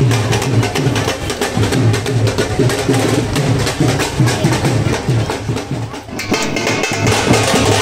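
Festival music with heavy, rhythmic drumming and a steady beat. It dips briefly about six seconds in and then picks up again.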